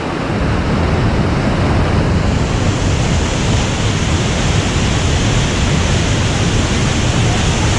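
Waterfall: a loud, steady rush of falling water close by.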